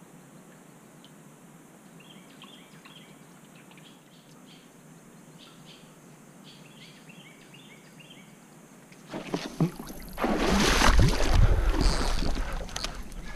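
Faint bird chirps over a quiet outdoor background, then about nine seconds in a sudden loud splashing and thrashing at the water's surface as a big fish on the line breaks the surface, lasting a few seconds.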